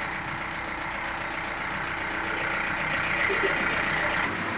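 VW Golf's 1.9 TDI (ALH) four-cylinder diesel, tuned to 140 kW, idling steadily with a strong hiss over it. The sound thins at the bottom a little after four seconds in.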